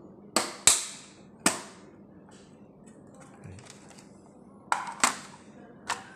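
Hard plastic clicks and snaps of a dot matrix printer's top cover being unlatched and lifted off: three sharp clicks in the first second and a half, then three more near the end.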